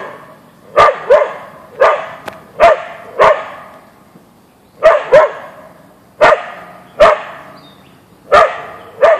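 A Siberian Husky mix (Ausky) barking at a deer: about a dozen loud, sharp barks, singly and in quick pairs at uneven gaps, each trailing off in an echo.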